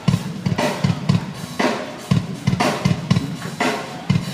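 Live drum kit playing a steady groove through a PA system: bass drum thuds several times a second, with snare hits about once a second.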